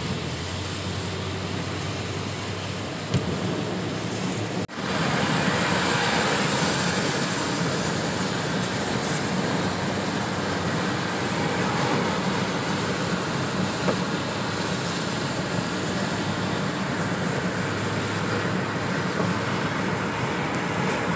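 Heavy rain on a moving car and its tyres on the flooded highway, a steady hiss heard from inside the cabin. It cuts out for an instant about five seconds in and comes back slightly louder.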